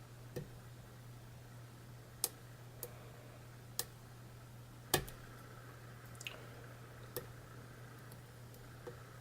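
Lock pick working the pins of a Pickaholic Deja Vu challenge lock: about eight sharp, irregularly spaced clicks, the loudest about halfway through, over a steady low hum. The picker suspects he is oversetting the pins.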